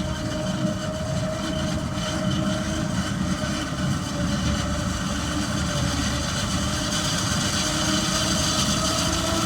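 Heavy diesel farm machinery running steadily under load, with a low rumble and a whine that rises slightly in pitch near the end.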